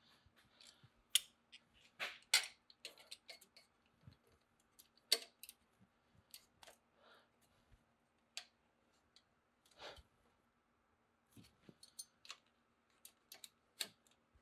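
Scattered metallic clicks and taps of adjustable pliers on a steel exhaust clamp being squeezed together around the pipe joint, irregular and a few at a time.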